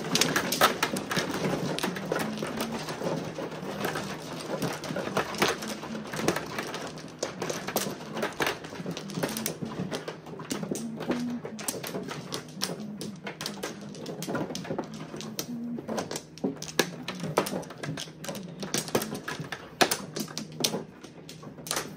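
Mahjong tiles clacking: many sharp clicks as tiles are drawn, knocked and discarded on the table, dense in the first half and sparser and more spaced out later, over a low steady hum.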